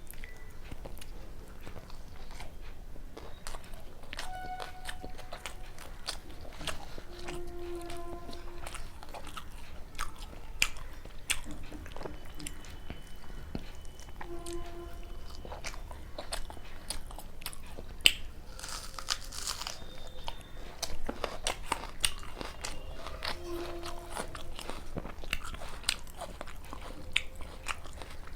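Close-up eating sounds of someone chewing luchi with chicken curry: many small irregular mouth clicks and smacks, with a sharper click and a brief hiss about 18 seconds in.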